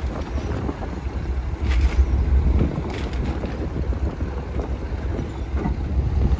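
Wind buffeting the microphone in a steady low rumble, with a few light knocks about two and three seconds in from fish and plastic crates being handled on the boat's deck.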